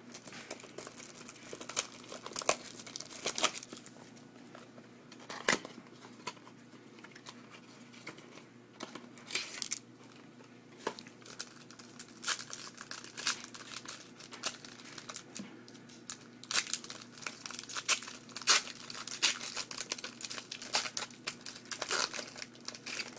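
A trading-card pack's wrapper being torn open and crinkled, in irregular crackles and rustles.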